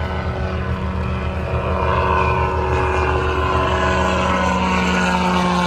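Light aircraft engine and propeller running, a steady drone that grows louder over the first two seconds, its pitch sinking slightly in the second half.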